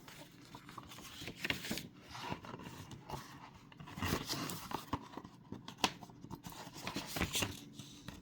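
Paper handling: a book's pages rustling and being turned, with irregular scraping and light clicks.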